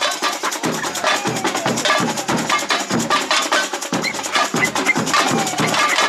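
Samba percussion band (bateria) playing: a steady beat of deep bass drums under dense, fast strokes of snare and other hand percussion.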